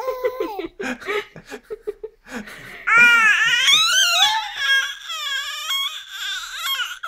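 Baby vocalising: short babbling, laughing sounds, then from about three seconds in long high-pitched squeals that waver up and down in pitch.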